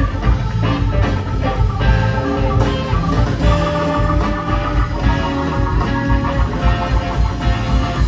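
Live rock band playing: electric guitars over bass, drum kit and keyboards, with no singing.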